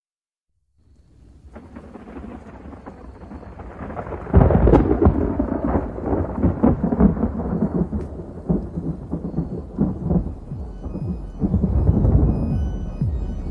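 Thunderstorm sound effect: rolling thunder with rain. It fades in about a second in and grows loud and crackling about four seconds in, and faint electronic music starts under it near the end.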